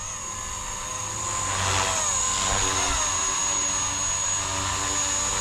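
Blade CP235 electric collective-pitch RC helicopter in flight: a steady whine from the motor and rotor at the lower head speed of mode 1. Its pitch wavers up and down a couple of seconds in, and it grows a little louder over the first two seconds.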